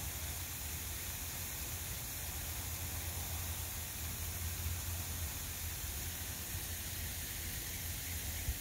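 Steady outdoor background hiss with a low hum underneath, and no distinct event.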